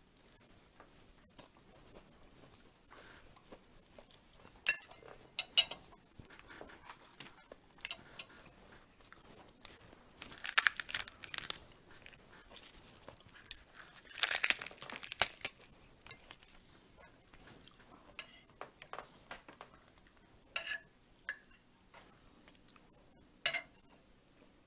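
Table eating sounds: a metal fork and spoon clink sharply against a china plate several times. Two longer crisp crunching, crinkling bursts come near the middle.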